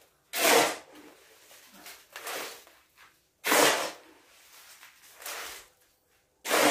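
Shovel scooping concrete and tipping it into a wheelbarrow: three loud, short scraping pours about three seconds apart, with softer scrapes between them.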